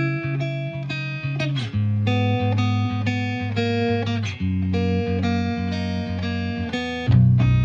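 Background music: an upbeat tune of plucked notes over a bass line, getting louder near the end.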